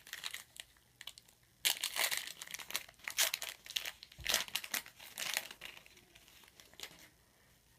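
Wrapper of a 2013 Rookies & Stars football card pack being torn open and crinkled, in irregular bursts of rustling that fade out near the end.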